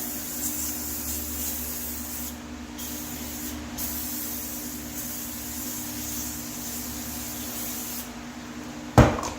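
Aerosol can of Super Clean foam degreaser spraying in a long hiss, broken twice briefly a little over two and three and a half seconds in, and stopping about eight seconds in. A sharp knock about nine seconds in is the loudest sound, over a steady low hum.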